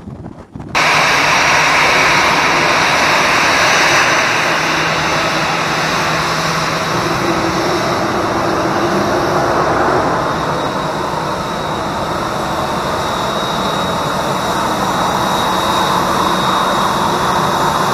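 Airbus A320 jet engines running loud and steady as the airliner moves along the runway, with a faint high whine over the engine noise. The sound comes in suddenly just under a second in and eases a little about ten seconds in.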